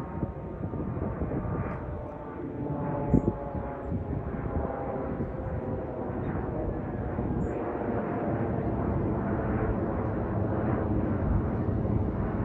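Jet airliner flying over, its engines making a steady rushing noise with a faint, slowly falling whine that grows gradually louder. A single brief thump about three seconds in.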